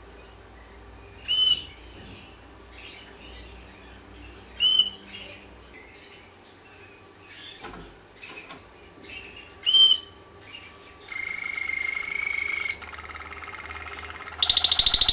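Domestic canary giving three short, sharp calls a few seconds apart with faint chirps between, then breaking into song: a held whistled note, a softer held note, and a loud, fast trill starting near the end.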